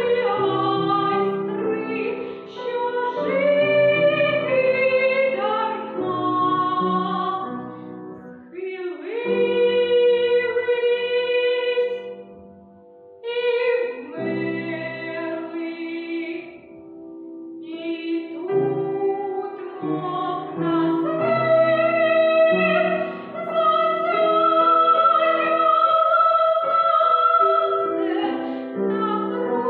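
A young woman singing in classical academic style, sustaining long notes, with grand piano accompaniment. The music drops to a brief quiet lull about twelve seconds in.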